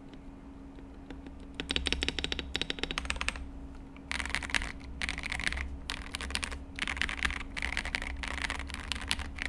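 KDB67 Lite mechanical keyboard, fitted with Owlstabs V2 stabilizers, being mashed at random: a few faint key clicks, then from about a second and a half in, fast dense flurries of key clacks broken by short pauses.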